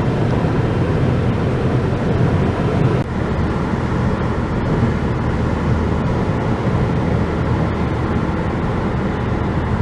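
Steady low rumble of a car on the move, road and engine noise. The level drops for a moment about three seconds in, then the rumble carries on.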